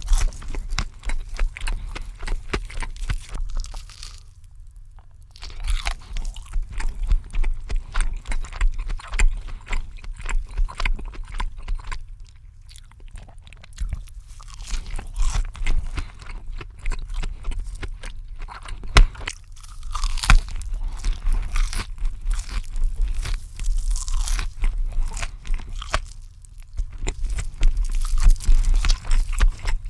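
Close-miked ASMR eating: a person biting into crunchy cheese food and chewing it. Crisp crackling bites come in runs, with a few short pauses between mouthfuls.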